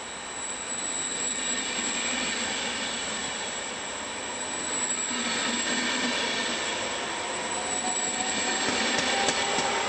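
Double-deck Vivalto regional passenger train running through the station, its wheels rumbling on the rails, with a thin steady high tone and a few sharp clicks near the end.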